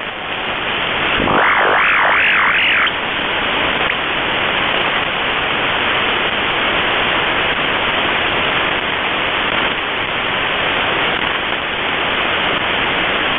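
Shortwave receiver hiss from the 20-metre amateur band, heard through a software-defined radio in upper-sideband mode with no station copied. About a second in, a whistle wavers up and down for a couple of seconds, then only the hiss remains.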